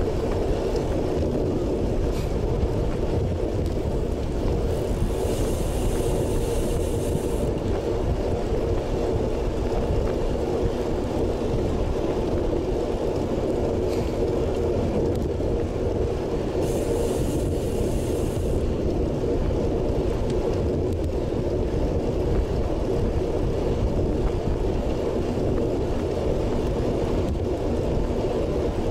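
Steady wind and tyre rumble from a road bike riding at about 30 km/h, heard through an action camera's microphone. A brief high-pitched hiss comes in twice, about five seconds in and again some twelve seconds later, each lasting a couple of seconds.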